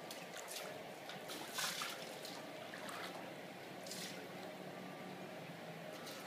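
Soft splashing of pool water as a child in a swim ring kicks and paddles, with several short splashes over a steady gentle wash of water.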